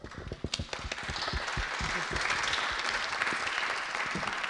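Audience applauding: a few scattered claps at first that thicken into steady applause about a second in.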